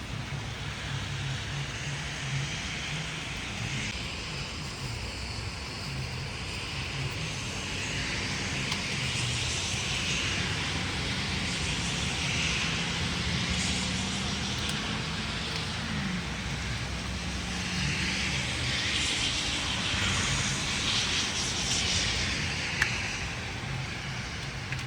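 Road traffic: a steady engine drone, with vehicles swelling past, once around ten seconds in and again near twenty seconds.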